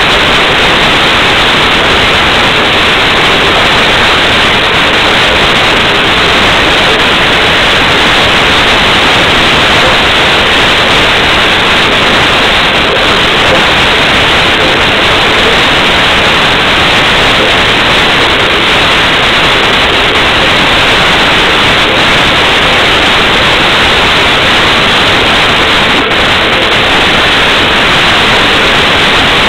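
Loud, unchanging static-like hiss with no breaks or distinct events.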